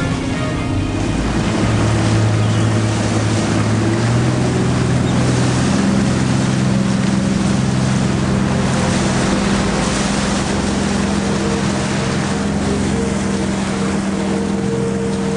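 Fishing boat's engine running steadily under wind and sea noise, its note stepping up in pitch about five seconds in.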